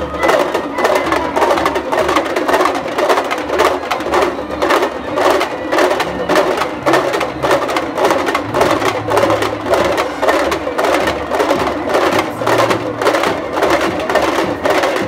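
A group of hand cymbals clashed together in a fast, even beat, with a drum under them: live procession percussion played by a marching troupe.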